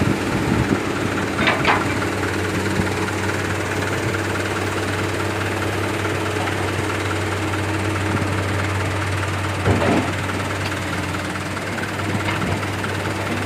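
Heavy diesel engine running steadily with a low hum, with two brief louder bursts, one early and one about ten seconds in.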